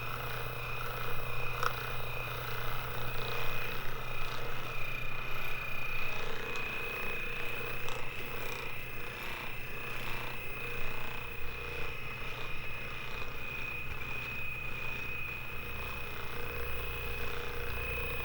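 Steady room tone: a low electrical hum and a thin high whine, with faint rustling and a couple of soft clicks.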